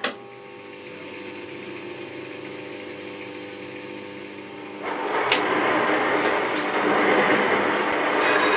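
Elliott 14M metal shaper: a short metallic clank, then the machine's steady hum. About five seconds in, the ram drive engages and the shaper runs much louder, with gear and slide noise and a few sharp clicks.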